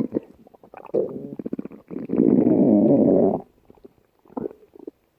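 Stomach growling. It starts with a short gurgle about a second in, then a loud rumble lasts about a second and a half, and it ends with a few small gurgles.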